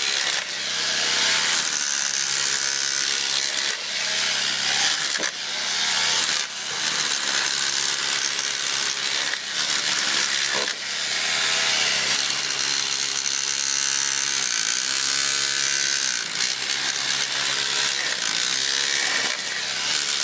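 Metabo KHE3250 SDS-plus rotary hammer running under load, its motor pitch dipping and recovering several times, with a few brief breaks.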